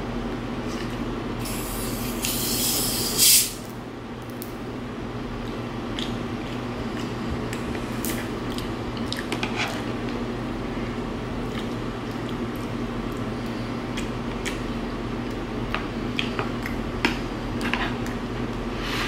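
Plastic drink bottle of pineapple coconut flavoured water being twisted open: a hiss builds over a couple of seconds and ends in a short, sharp burst about three seconds in. After it come small clicks and quiet chewing sounds of eating.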